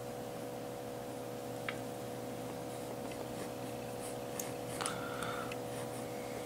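Mechanical pencil sketching lightly on paper: faint scratchy strokes and small ticks, the clearest stroke about five seconds in, over a steady background hum.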